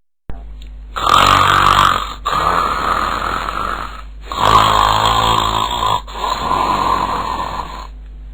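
A man snoring in deep sleep: two long snores, each loud at first and trailing off softer.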